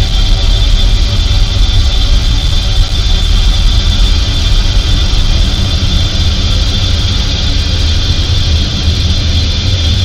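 Ambient noise music: a loud, dense, unchanging drone of deep rumble under a hissing upper band, with many faint held tones woven through it, much like an engine's drone.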